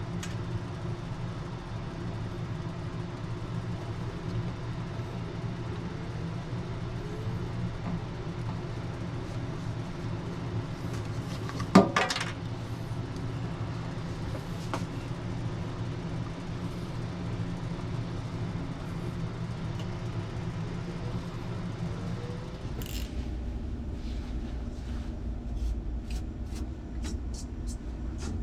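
Steady mechanical hum with one sharp knock about halfway through; near the end the hum gives way to a lower rumble with a few light clicks.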